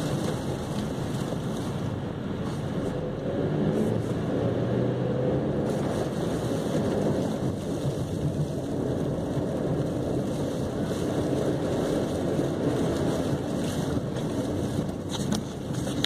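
Chevrolet Cavalier driving, heard from inside the cabin: a steady mix of engine and tyre noise on a wet, snow-covered road.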